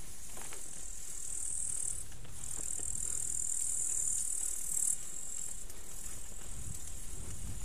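Insects singing in the roadside vegetation: a steady, high-pitched buzz that breaks off briefly about two seconds in and stops about five seconds in, over a low rumble.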